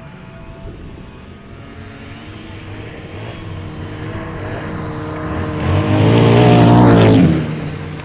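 Snowmobile engine approaching and passing close by: it grows louder over several seconds, is loudest about six to seven seconds in, drops in pitch as it goes past, then fades.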